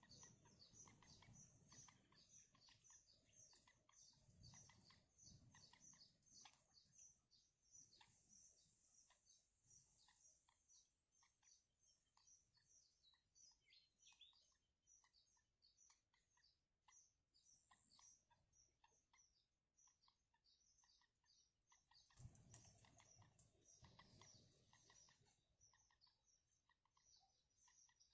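Faint, rapid high-pitched chirping of small birds: a dense stream of short chirps with an occasional longer falling note. A low rumble comes and goes twice.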